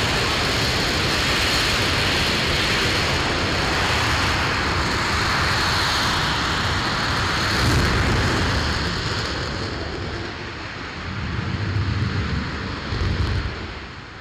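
Aerojet Rocketdyne RS-25 liquid-hydrogen/liquid-oxygen rocket engine firing on a test stand: a steady, loud rushing noise that begins to fade after about eight seconds as the engine shuts down at the end of its 500-second hot fire, with two low rumbles near the end before the sound drops away sharply.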